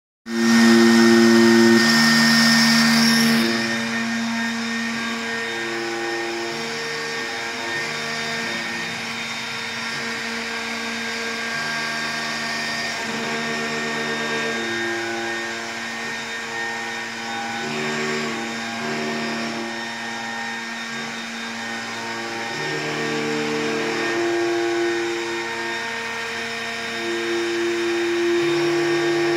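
CNC router cutting marble: a hiss of the spindle and cutting for the first few seconds, then a quieter machine whine whose steady tones change pitch and start and stop every second or so as the head moves along its path.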